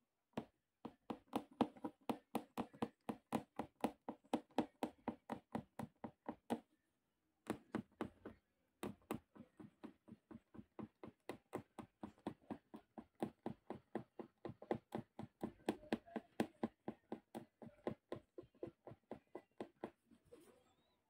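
Punch needle stabbing through fabric stretched tight in an embroidery hoop: a quick run of taps, about four a second, with a short break about seven seconds in.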